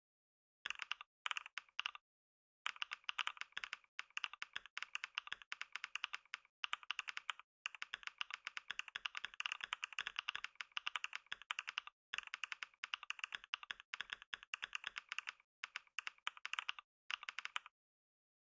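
Fast typing on a computer keyboard during a speed-typing test: rapid keystrokes in runs broken by short pauses, stopping near the end.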